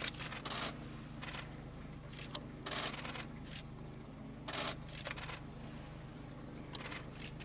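Camera shutters firing in short rapid bursts, several times at irregular intervals, over a steady low hum.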